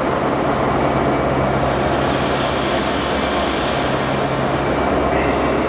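Class 67 diesel-electric locomotive with its EMD two-stroke V12 engine running steadily, a loud continuous rumble with a low hum. A high hiss joins for a couple of seconds in the middle.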